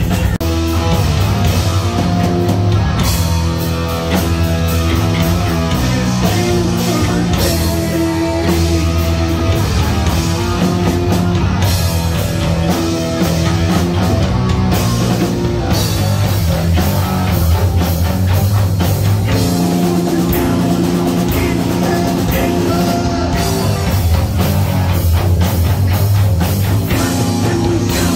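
Heavy metal band playing live and loud, with distorted guitars, bass and a pounding drum kit.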